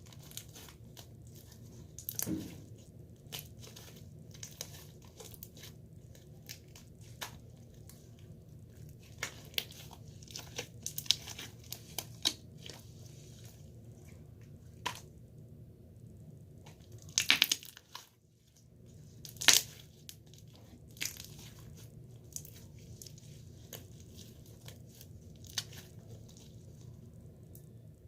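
Slime being worked by hand: scattered crisp crackles, pops and crinkling clicks, with a few louder squelching bursts about two seconds in and again around two-thirds of the way through.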